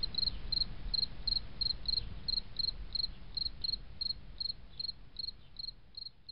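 Cricket chirping in an even rhythm, about three short chirps a second, over a low background hiss. It fades out toward the end.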